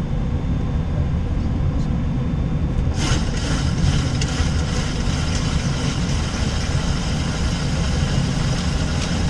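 Steady low rumble in a Boeing 737-800 cockpit while the airliner taxis, its engines at idle. A steady hiss joins about three seconds in.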